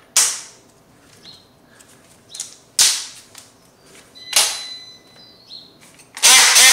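Sharp clicks, three of them a second or two apart, as a blade is fitted and latched onto a handheld power multi-tool. Near the end the multi-tool switches on and runs with a loud buzz.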